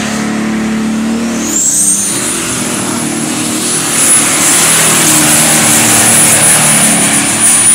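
Modified pulling tractor's engine running hard as it pulls the weight sled down the track, with a high whine that climbs about a second and a half in and then holds steady. It gets louder from about four seconds in.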